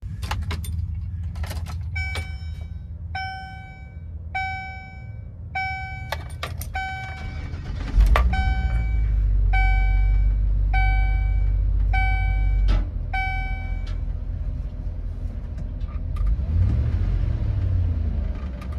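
Keys jangling at the ignition of a 2006 GMC Topkick 4500, then a dashboard warning chime ringing about once a second, eleven times. About eight seconds in, the truck's 8.1-litre gas V8 starts with a sudden jump in level and settles into a steady low idle.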